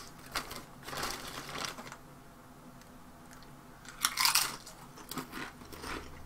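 Plain kettle-cooked potato chips crunching as they are bitten, with a sharp crunch about four seconds in, then lighter crunches of chewing. Lighter crackles in the first two seconds come as the chips are handled.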